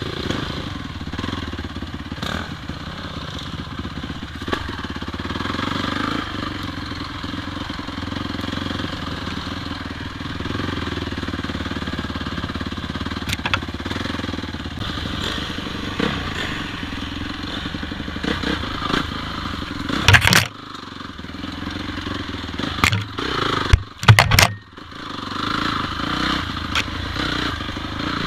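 Off-road motorcycle engine running steadily on a dirt trail, with a few loud sudden thumps about twenty seconds in and again a few seconds later.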